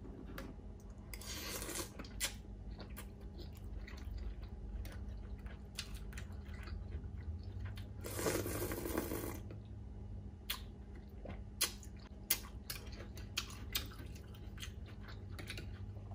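Pho rice noodles slurped off a fork twice, briefly about a second in and again for about a second near the middle, with chewing and short sharp mouth clicks between and after.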